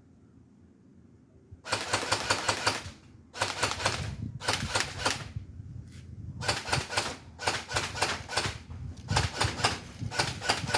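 Airsoft StG 44 replica firing rapid bursts of clicking shots, about seven short bursts with brief pauses between them, starting after a quiet second and a half.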